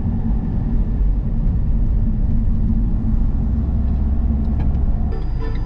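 Steady low rumble of a car driving, heard from inside the cabin. Music comes in near the end.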